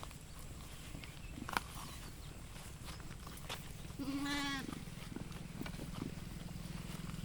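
A sheep bleats once, a single wavering call about half a second long, about four seconds in. Scattered light clicks and a steady low hum sit underneath.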